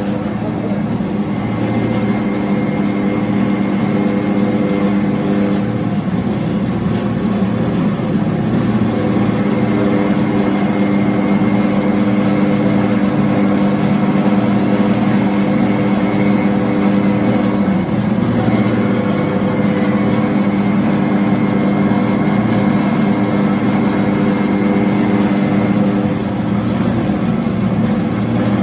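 Raisin grinder machine running steadily: a motor-driven grinding mill with a constant hum and a faint high whine above it.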